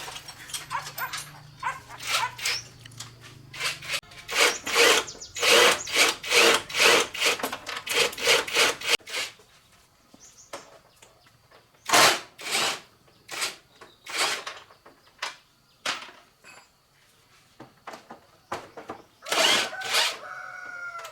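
Hand-tool work on a motorbike being taken apart: a quick run of rasping, scraping strokes a few seconds in, then scattered single scrapes and knocks, with a brief squeal near the end.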